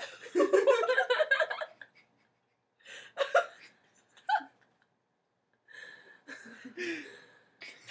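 People laughing: a long laugh in quick pulses in the first two seconds, then short laughs and gasps, with quieter giggling near the end.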